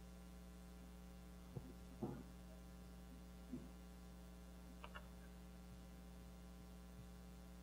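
Near silence over a steady electrical mains hum, with a few faint ticks and short squeaks of a marker on a whiteboard as a line and a word are written.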